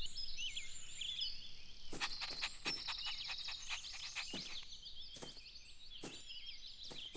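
Faint background birdsong of many short chirps, with a series of soft clicks from about two seconds in.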